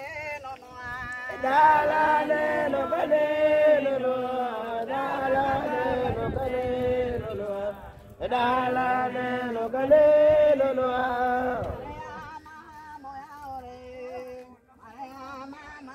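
A group of walkers singing a chant together, loud sustained phrases with a short break about eight seconds in, then quieter singing over the last few seconds.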